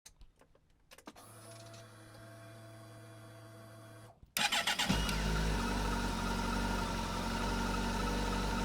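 A Kawasaki GTR1400's inline-four is started. A steady low hum for about three seconds is followed by a brief crank of the starter a little past four seconds in. The engine catches about five seconds in and settles into a steady idle.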